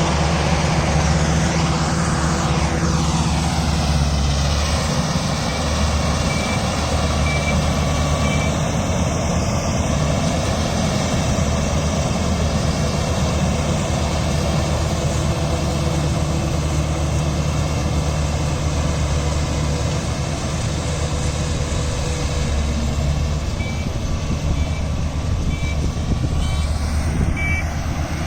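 Combine harvester running steadily: a heavy diesel engine with a broad mechanical clatter over it.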